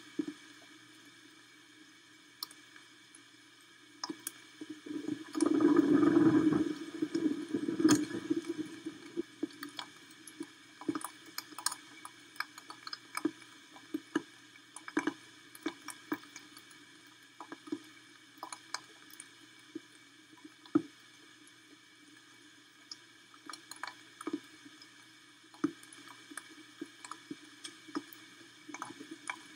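Rain dripping onto the nest camera in a storm: irregular sharp drips and taps. About five seconds in comes a louder burst of noise lasting about two seconds.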